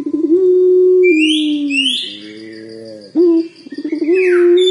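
A young puter pelung (Barbary dove) cooing: a quavering roll runs into a long held note that slides down at the end. The phrase starts again about three seconds in, as the bird practises the long call. High, quick rising chirps sound over it about a second in and again near the end.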